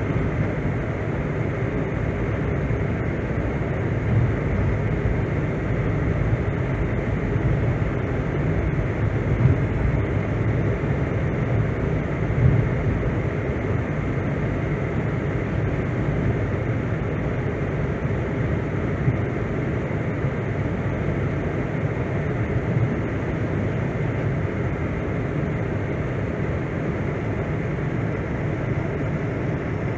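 Steady engine and road noise heard inside the cabin of a car driving along, with a few small bumps along the way.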